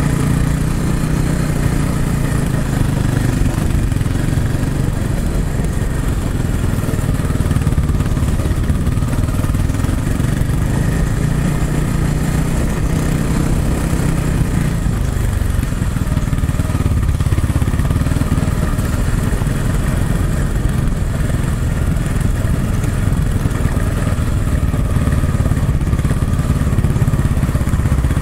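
Dirt bike engine running under way on a trail, loud and close to the camera, its note shifting with the throttle.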